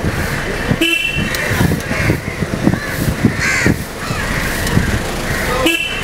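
Busy street traffic noise with short car horn toots about a second in and again near the end, and crows cawing.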